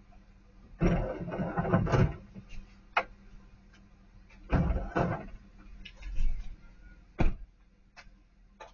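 Clattering bangs of hard objects being thrown into the bed of a pickup truck, in two loud bursts about a second in and again around four and a half seconds in, with single sharp knocks in between and a loud one about seven seconds in, including the truck's door being shut. Heard through a doorbell security camera's microphone.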